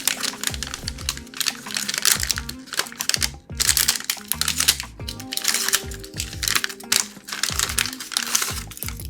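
Background music over dense runs of rapid clicks and rustling, with a short lull about three and a half seconds in.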